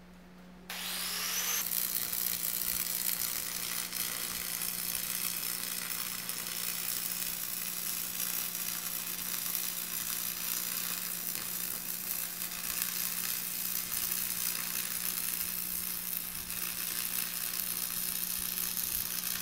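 Stick-welding arc struck under a second in, then a steady crackling sizzle as a weld bead is run on steel plate, over a steady low hum.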